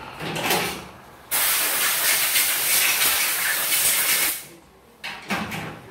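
Compressed air blowing in hissing blasts: a short blast, then one long blast of about three seconds, then another short one near the end.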